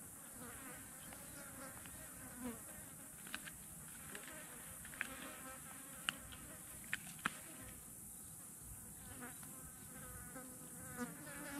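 Flies buzzing around a dead fish, the buzz wavering in pitch as they come and go, over a steady high hiss. A few sharp clicks stand out in the middle, as the vultures peck and tear at the fish.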